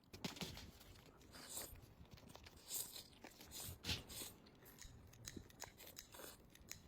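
Crunchy food being bitten and chewed, an irregular run of crackling crunches with a few louder bites.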